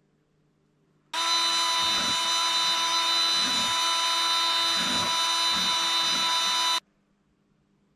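Cordless drill running at a steady speed, driving a hook paddle mixer that stirs epoxy resin in a plastic bucket. Its motor whine starts suddenly about a second in and cuts off suddenly near the end.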